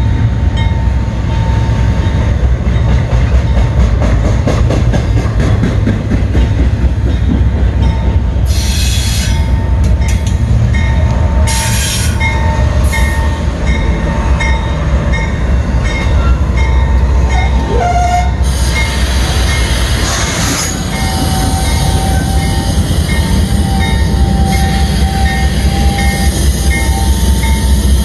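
Norfolk Southern freight train rolling by: a steady low rumble from the diesel-electric locomotives and the wheels on the rails, with a regular light clicking. Short bursts of high hissing screech come in the middle, and a wider hiss rises about two-thirds of the way through.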